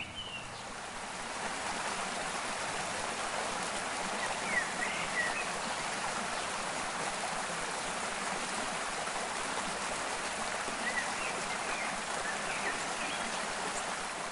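Steady rushing water of a stream, fading in over the first second or so. A few faint bird chirps sound about four seconds in and again near the end.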